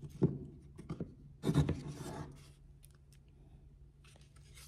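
A clamp being fitted and tightened on a freshly glued wooden joint: a sharp click, a few small ticks, then a short scraping rub about a second and a half in.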